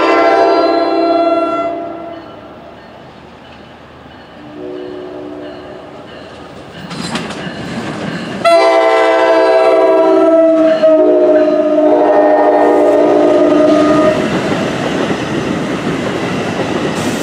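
NJ Transit electric locomotive's multi-note horn sounding as the train approaches: a loud blast for the first two seconds, a fainter one around five seconds in, then a long loud blast from about eight and a half to fourteen seconds. After that comes the steady noise of the double-deck passenger train running past, its wheels clacking over the rails.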